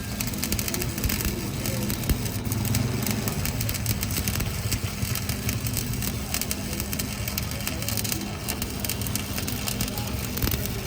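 Electric arc welding: a dense, steady crackle over a low hum.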